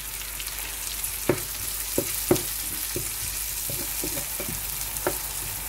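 Chopped onions and green and yellow bell peppers sizzling as they fry in a non-stick pan, with a steady high hiss. A wooden spatula stirs them, knocking against the pan a few times.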